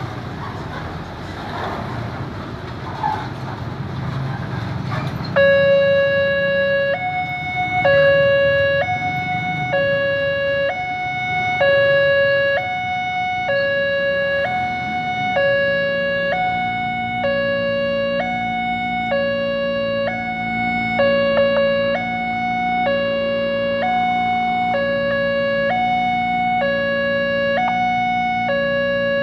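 Railway level-crossing warning siren switching on about five seconds in, sounding a steady two-tone hi-lo alternation with each tone held about a second: the crossing's alarm warning that a train is approaching. Road traffic noise comes before it, and a low steady hum joins about halfway through.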